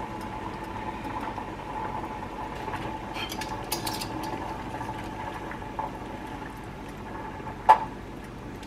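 A skillet of cream sauce simmering and a pot of pasta water boiling on the stove, a steady bubbling hiss with a few light crackles a few seconds in. Near the end, one sharp clink of a metal utensil against the pasta pot.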